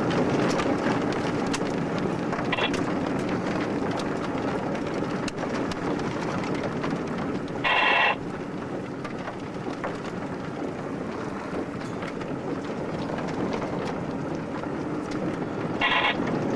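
Steady road and wind noise inside a moving vehicle. About eight seconds in, a short pitched beep sounds once for about half a second.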